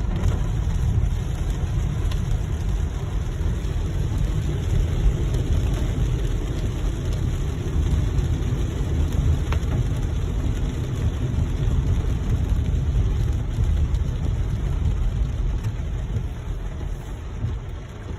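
Steady driving noise of a car on a wet, flooded road: a low rumble with a steady hiss, easing slightly near the end.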